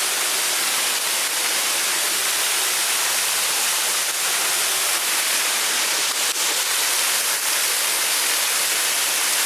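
Waterfall water rushing and splashing close by, a loud, steady rush of falling water.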